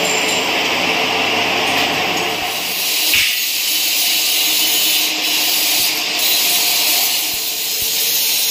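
A drill press running as it drills into a mild-steel tube frame, with a steady motor hum. About three seconds in it gives way to an angle grinder cutting steel with a harsh, high hiss.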